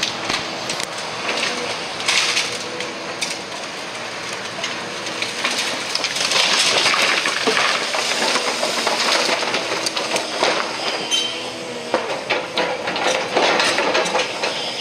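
Demolition excavator's diesel engine running under load while its grapple tears into a house, with repeated crunching and clattering of breaking timber and falling debris. The crashing is heaviest from about six seconds in and again near the end.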